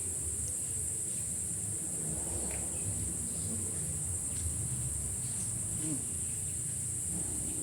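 Steady high-pitched chorus of insects, a continuous shrill buzz, over a low background rumble with faint distant voices.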